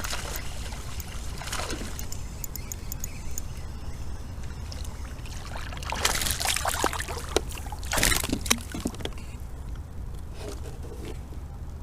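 Water splashing and sloshing beside a kayak as a hooked bass is fought at the surface, with louder splashes about six and eight seconds in.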